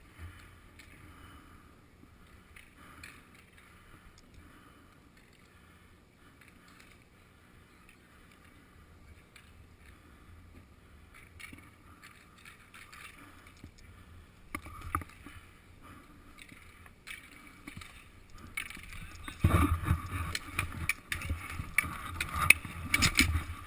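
Roller hockey play heard from a goalie's helmet: faint, scattered stick clacks for most of the time. Then, about three-quarters of the way in, it gets louder as play comes close, with inline skate wheels rolling on concrete and sharp clacks of sticks on the plastic ball and pavement.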